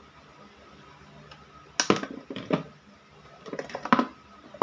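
Hand tools knocking and clacking on a plywood workbench as a screwdriver is set down and wire strippers are picked up. There are a few sharp knocks about two seconds in, then a quicker cluster near the end.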